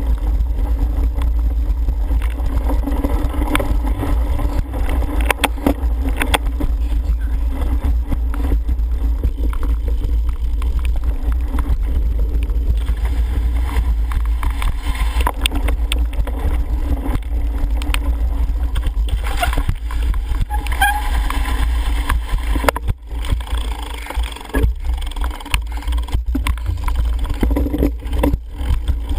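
Wind rumbling on a helmet-mounted camera's microphone as a cyclocross bike is ridden fast over rough grass and mud. Frequent clicks and knocks come from the bike jolting over bumps.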